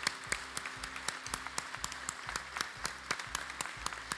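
An audience applauding: a dense, irregular patter of many separate hand claps.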